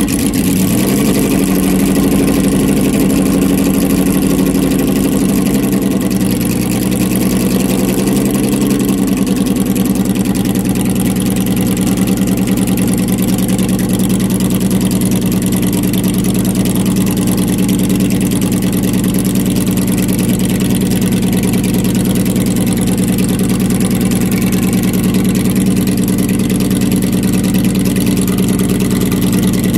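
Jaguar XJ13's five-litre quad-cam fuel-injected V12 idling. Its speed eases down a little in the first several seconds, then holds at a steady idle.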